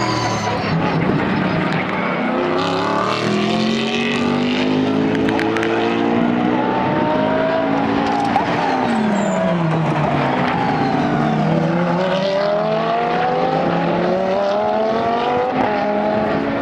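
GT race cars' engines at racing speed, several overlapping as a group passes. Their notes repeatedly climb under acceleration and drop as the cars lift, change gear or go by.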